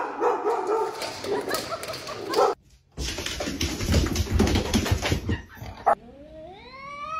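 Dogs whimpering and barking in short bursts, with a brief break about two and a half seconds in. Near the end a long, steadily rising cry begins.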